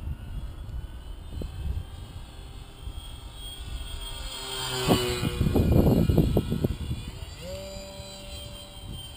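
Electric RC foam plane's 2212 brushless motor and 8x4 propeller whining overhead, loudest as it passes close about five seconds in, its pitch dropping as it goes by. Near the end it settles into a steady whine. Gusty wind rumbles on the microphone throughout.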